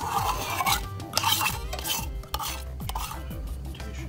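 A utensil scraping the last sweetened condensed milk out of its can into a saucepan, in several scraping strokes.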